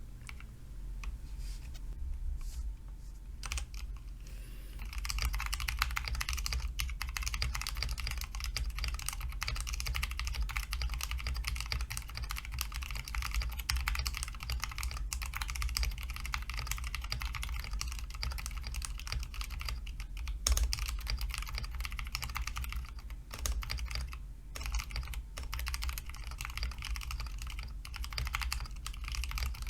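Mechanical keyboard: a few separate key presses, then fast continuous typing from about five seconds in, with a couple of short pauses.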